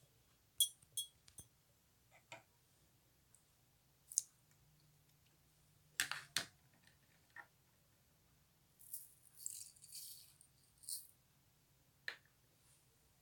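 Scattered light clicks and rattles, with a few soft hissy rustles about nine to eleven seconds in, over a faint steady low hum.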